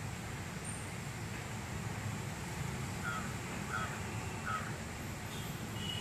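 A crow cawing three times in quick, even succession midway through, over a steady low background rumble.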